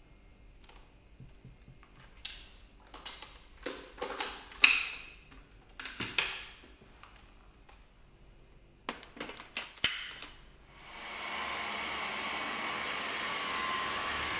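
A few sharp plastic clicks and clacks as the Dyson V6 cordless stick vacuum is handled, then, about eleven seconds in, its motor starts. It rises quickly to a loud, steady rush of air with a high whine on top.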